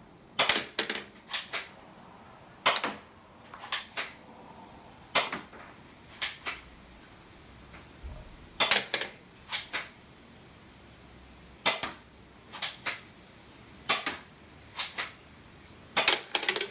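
Shots from a manual spring gel ball pistol, with gel balls striking the plastic auto-reset target and the tabletop: sharp clicks and snaps, often in quick pairs, coming irregularly about a second apart. The hits knock the target's plates down one by one.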